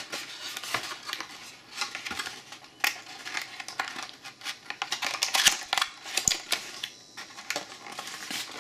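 Cardboard box inserts and plastic wrapping being handled: irregular rustling, scraping and sharp taps as a heatsink is lifted out of its packaging.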